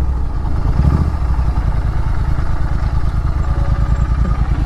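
Royal Enfield Continental GT 650's parallel-twin engine running steadily at low revs through a Red Rooster aftermarket exhaust as the bike rolls slowly, a deep, even exhaust note.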